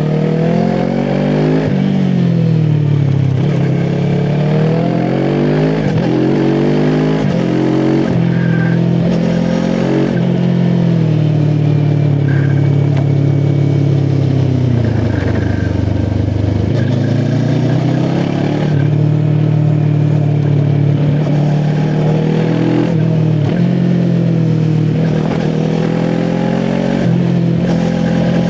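QJ SRT 450 RX motorcycle's parallel-twin engine accelerating through several gears, its pitch climbing and dropping at each shift, then holding steady at cruise. About halfway through it eases off to a low, near-idle note for a second or two before pulling away and cruising again.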